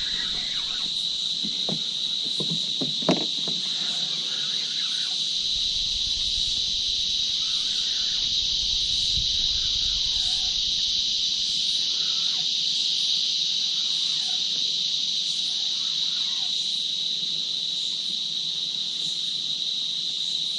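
A steady, high-pitched drone of a chorus of insects from the bankside bush, with a short tap about three seconds in.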